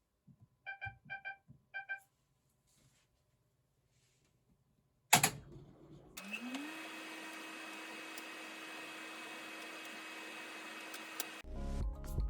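Panasonic NA-VX9300L drum washing machine in service mode: the control panel beeps three times, a loud click follows, then a motor starts with a hum rising in pitch and runs steadily for about five seconds, as one of its parts is run for an operation check.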